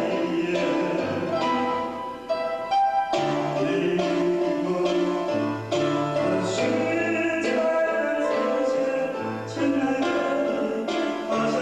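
A Taiwanese song sung over a steady instrumental backing track with a moving bass line.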